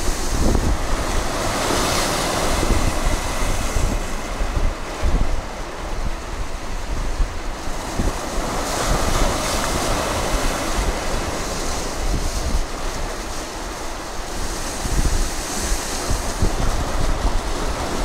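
Sea waves breaking and splashing over a rocky breakwater, the surf swelling and fading several times, with the biggest surge about nine to ten seconds in. Gusting wind buffets the microphone underneath.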